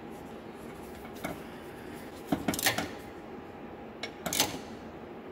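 Hand socket ratchet clicking and metal clinking in three short bursts as a bolt is run in and tightened.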